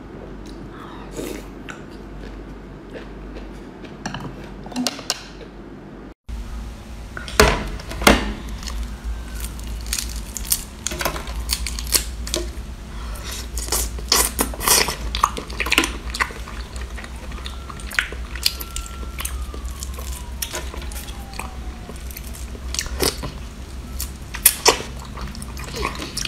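Close-up eating sounds: chewing, lip smacks and sucking on spicy seafood and saucy prawns, with many short sharp clicks. The sound cuts out for an instant about six seconds in, and the eating sounds are louder after that.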